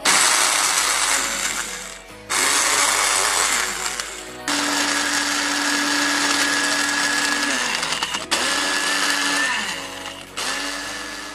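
A small personal blender grinding digestive biscuits into fine crumbs. It runs in four pulses of two to four seconds each, every one starting abruptly.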